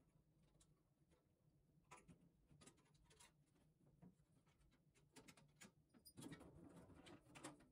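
Faint clicks and scraping of the heat shield's removable clips being worked loose under the bench: a few separate clicks, then a longer run of scraping and clicking near the end.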